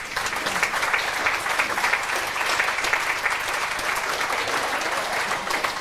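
Audience of several dozen people applauding steadily, many hands clapping at once.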